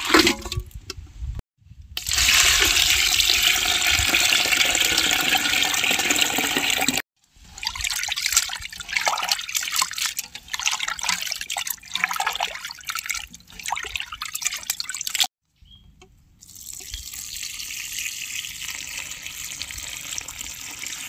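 Raw chicken pieces being washed by hand in a basin of water. A steady rush of water comes first, then irregular splashing and sloshing as hands rub the pieces, and near the end a steadier, quieter stream as the wash water pours off the basin's rim onto the ground.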